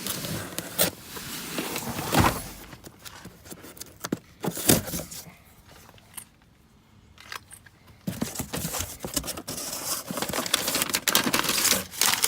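Handling noises: irregular clicks, knocks and light rattling, with a few sharper knocks in the first five seconds and dense rapid clicking in the last few seconds.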